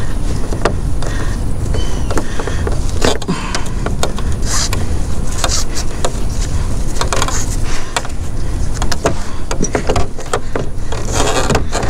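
Scattered clicks and knocks of a kayak cart's straps and buckles being undone against a plastic kayak hull, over a steady low rumble.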